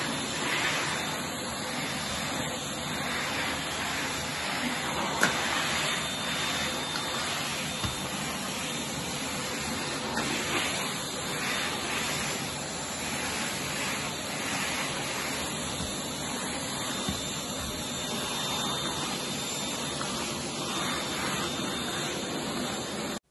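Dyson cordless stick vacuum running steadily as it is pushed over a laminate floor: an even motor rush with a faint high whine on top.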